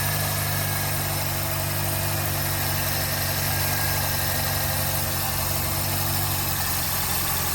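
2000 Toyota Corolla's four-cylinder engine idling steadily, just restarted on four new spark plugs that were fitted to cure a misfire.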